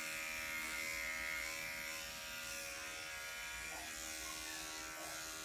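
Electric pet grooming clippers with a 1/2-inch comb attachment running with a steady buzz while trimming a small dog's facial hair.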